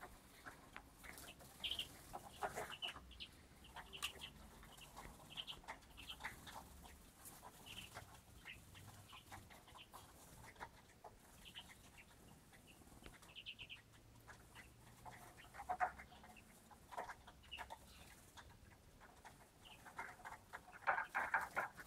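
Pied European greenfinches giving short, scattered chirps, faint and irregular, with a denser run of louder calls near the end.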